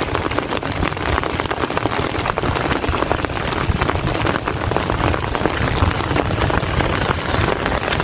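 Heavy rain falling steadily, a dense patter of drops with a low rumble underneath.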